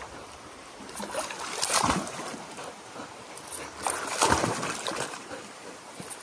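Water splashing and sloshing in two bursts, one about a second in and a longer one about four seconds in, over a quieter trickle.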